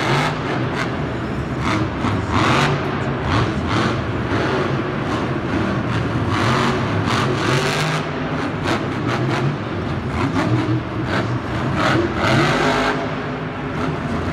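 Monster Jam trucks' supercharged engines revving hard, surging and dropping again and again.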